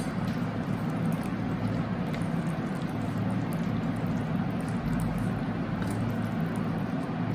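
Steady low hum and hiss, with faint scrapes of a plastic spoon stirring thick white sauce into spinach and mushrooms in a steel pan.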